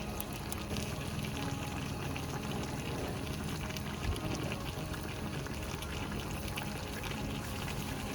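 Steady sound of moving water, with faint background music.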